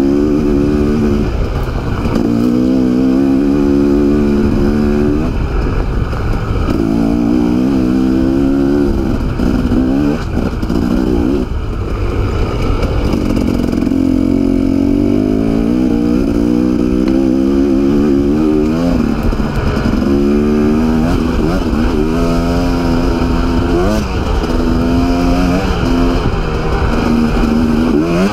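Dirt bike engine under way on a rough track, its revs climbing and falling again and again as the throttle is opened and eased.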